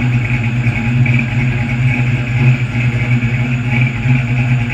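6.0-litre LS V8 in an Oldsmobile Cutlass idling steadily through its exhaust, warming up after a cold start. The deep droning note holds an even pitch, with no revs.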